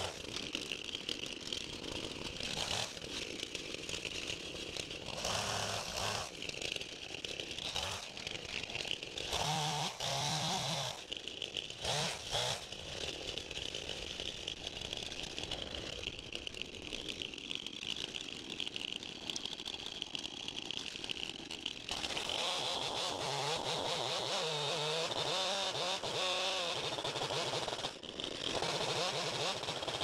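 Two-stroke chainsaw running at idle. About two-thirds of the way through it runs harder and louder, its pitch wavering as it cuts into a fallen hardwood log.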